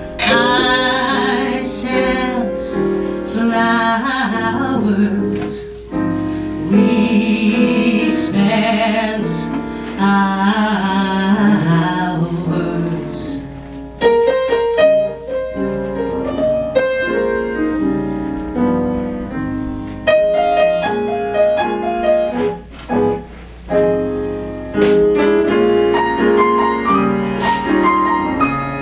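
A woman's voice singing a slow ballad with vibrato over piano accompaniment, giving way about halfway through to the piano playing alone.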